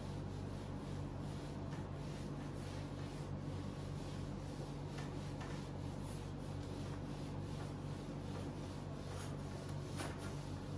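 Cloth wiping a whiteboard clean: faint, soft rubbing strokes over a steady low hum.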